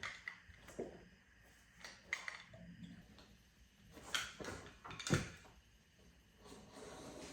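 Irregular knocks and clicks of vinyl flooring work, a few separate strikes with the loudest about five seconds in.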